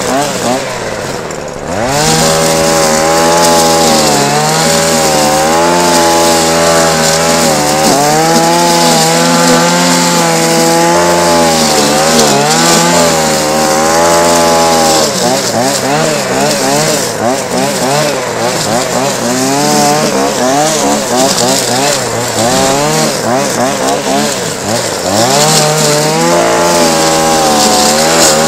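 Two-stroke brush cutter with a nylon-cord head, near idle at first, then throttled up about two seconds in and run at high revs through grass, its pitch wavering and sagging under the load of cutting. Near the end it drops back briefly and revs up again.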